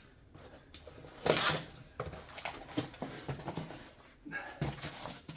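Packaging being torn open and handled: a loud rip about a second in, then rustling and small knocks, and another short tearing rustle near the end.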